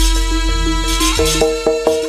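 Jaranan accompaniment music from a gamelan-style ensemble: repeated struck, ringing metallophone notes with drum strokes, over a deep low note that fades about a second in.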